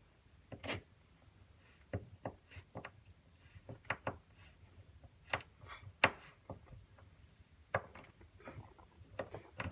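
Scattered clicks and knocks of hands working at a ceiling box, pushing the hardwired smoke detector's wiring back in, with one sharper, louder knock about six seconds in.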